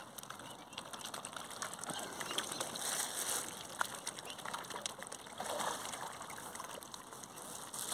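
Lake water splashing and trickling as swans feed at the surface, with scattered small clicks and splashes that swell twice, about three and five and a half seconds in.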